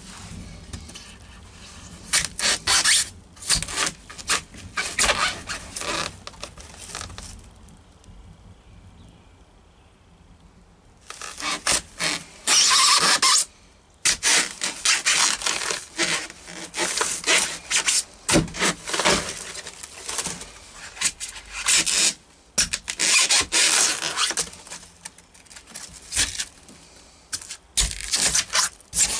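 A hand tool is worked against a boat's floor materials in quick, repeated rasping strokes, like scraping or hand sawing. The strokes come in several runs, with a pause of a few seconds about a third of the way in.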